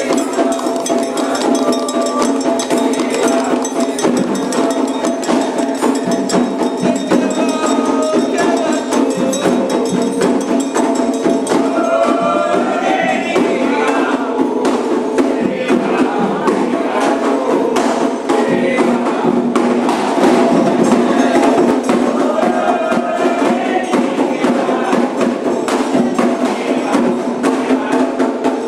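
Candomblé ritual music: voices singing over fast, steady hand percussion with sharp clicking strokes.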